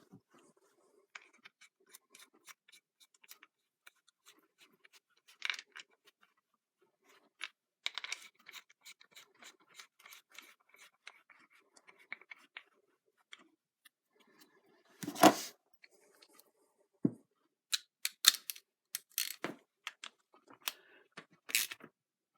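Small metal clicks, scrapes and taps as two bolts are fitted into the cast housing of a Farmall Cub hydraulic pump by hand. One loud knock about fifteen seconds in, then a run of sharp clicks.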